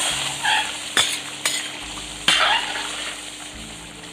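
A steel spoon stirring a thick simmering chicken and potato curry in a metal kadai, scraping through the gravy and knocking sharply against the pan a few times, over a steady sizzling hiss.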